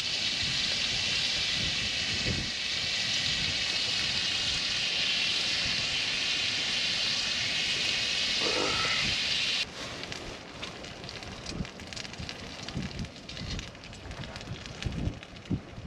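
A steady high hiss that stops abruptly about two-thirds of the way in. After it come quieter scattered ticks and knocks as the charcoal in a small camp grill is poked with tongs.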